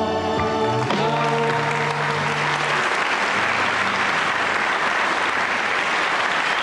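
Audience applauding as the band's final held chord dies away in the first few seconds.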